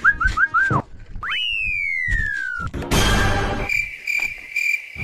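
Cartoon comedy sound effects: a quick run of whistle chirps, then a long slide-whistle glide falling in pitch, a short noisy whoosh about three seconds in, and a pulsing high chirp like crickets near the end.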